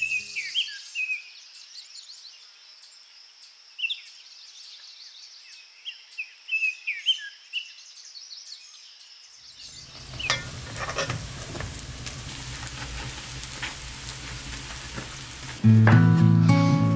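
Small birds chirping over a steady high insect-like buzz, then after about ten seconds an abrupt change to food sizzling as it fries in a hot pan. Guitar music comes in loudly near the end.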